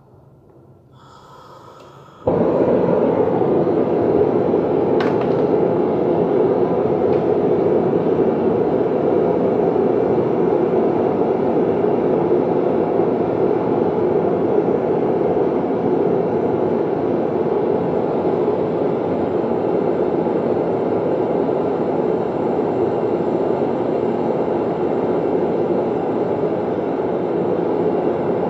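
A machine switches on abruptly about two seconds in and runs with a loud, steady rushing noise.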